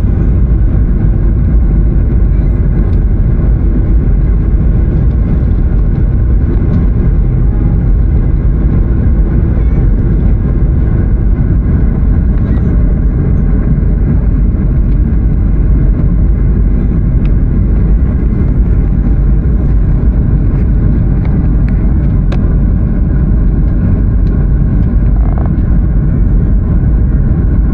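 Airliner cabin noise on approach: a steady, loud drone of engines and airflow through the fuselage, heaviest in the low end.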